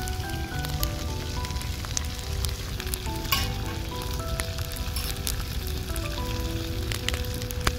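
Sliced vegetables (eggplant, zucchini, bell peppers, tomato) frying in oil in a wide pan: a steady sizzle with scattered sharp crackles as more slices are laid in. A soft instrumental melody plays underneath.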